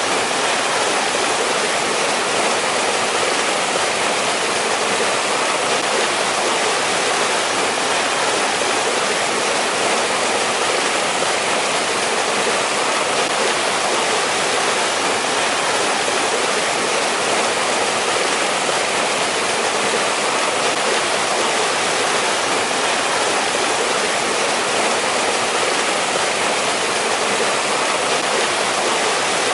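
Mountain stream rushing over rocks in a steady, unbroken flow, with no change in pace or level.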